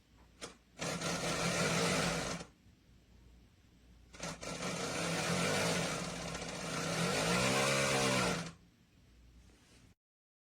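Inline duct fan running with a steady motor hum and loud rushing air, heard in two stretches of a second and a half and about four seconds, the hum wavering near the end of the second.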